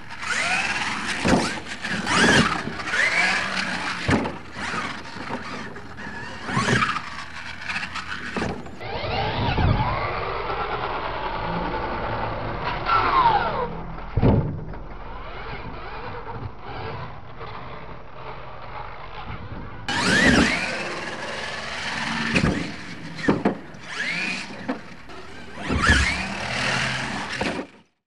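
Electric RC monster truck motor whining, rising and falling in pitch as the throttle is worked, with tyres scrabbling on dirt. Repeated thumps come from jump landings, including one just after the start and others at about 4, 8, 14, 20 and 26 seconds.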